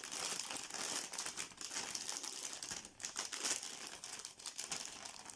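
Plastic wrapping being unwrapped by hand: a dense run of irregular crinkles and rustles.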